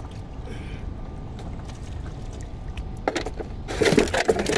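A steady low rumble of wind and water around a small wooden boat. From about three seconds in comes a quick run of knocks and scrapes, loudest near the end, as a tangled fishing longline and gear are hauled and handled in the boat.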